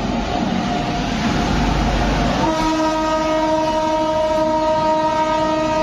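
A WAP-7 electric locomotive and its express train passing at speed on the next track, wheels rumbling on the rails. About two and a half seconds in, its horn sounds one long, held blast.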